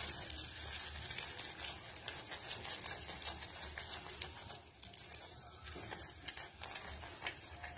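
Faint bubbling and small crackles of sugar melting in a little water in a steel saucepan, with a silicone spatula stirring through it.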